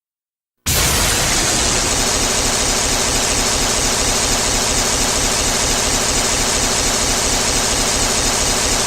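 Made-up monster sound effect: a loud, steady rushing noise with a regular wavering ripple through it, starting suddenly about a second in and held without a break.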